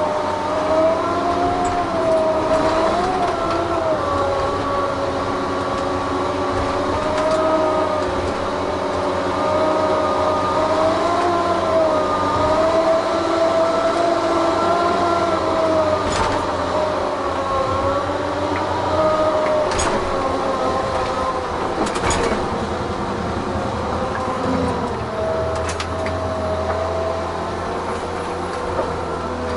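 Tigercat 1075B forwarder heard from inside its cab as it drives: a steady engine drone under a whine that wavers slightly in pitch. Several sharp knocks come in the second half.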